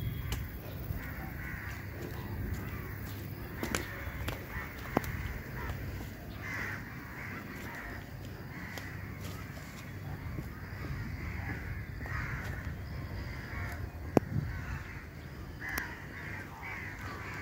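Crows cawing again and again, harsh calls coming every second or two, with a few sharp clicks or knocks in between.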